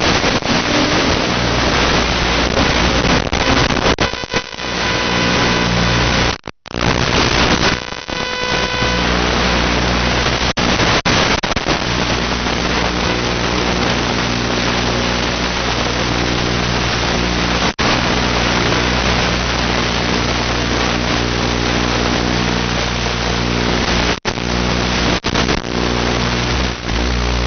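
Small drone's motors and propellers running with a steady hum under a hiss of wind and air noise, heard from its onboard camera. The sound cuts out briefly several times, most deeply about six and a half seconds in.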